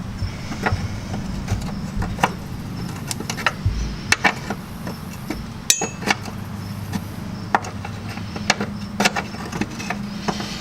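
Hand tools clicking and knocking irregularly on metal as a brake line fitting is undone at the caliper, with one ringing metallic clink partway through, over a steady low hum.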